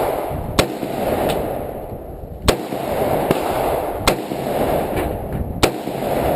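Smith & Wesson M&P AR-15 rifle firing single shots, about six sharp cracks spaced roughly a second apart, some louder than others, over a steady low rumble of background noise.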